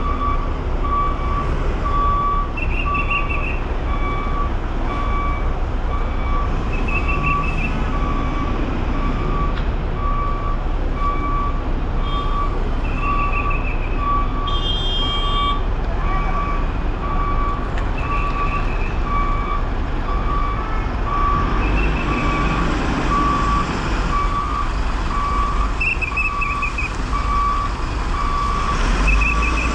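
Reversing beeper on a Scania multi-axle coach sounding steadily, about one beep a second, with a higher chirp every few seconds. Under it runs the low rumble of the coach's diesel engine as it manoeuvres out of its bay.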